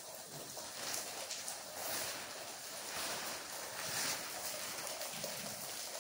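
Footsteps of someone walking, about one a second, over a steady hiss.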